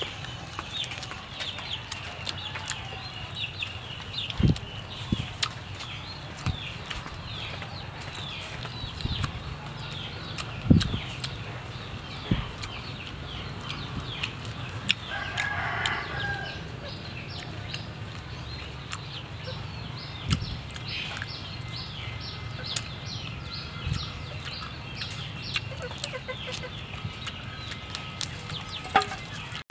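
Chickens clucking, with a rooster crowing about halfway through, over many short high chirps, and a few soft low thumps now and then.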